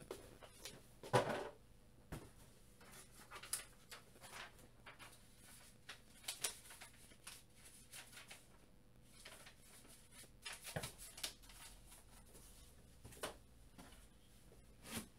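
Faint, scattered clicks, knocks and rustles of a person moving about and handling things out of view, the loudest knock about a second in.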